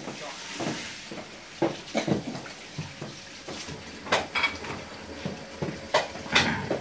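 Child's inline skates rolling and clattering on a laminate floor: irregular knocks and clacks of the wheels and boots as she strides, the loudest near the end.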